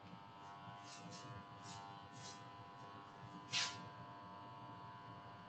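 Faint steady electrical buzz of several tones from the recording setup, with a few short soft scratchy hisses and one louder one about three and a half seconds in.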